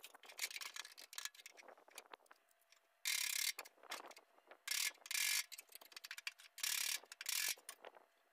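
Metal clamps and hand tools handled against a sheet-metal patch panel being fitted to a VW Beetle's rear quarter: a quick run of clicks and clanks, then several loud bursts of noise, each about half a second long, from about three seconds in.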